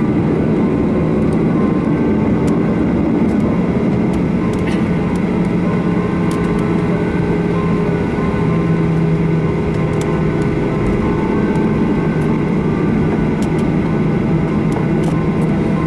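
Jet airliner cabin noise while taxiing: a steady engine rumble with a low hum, with a few faint clicks and rattles.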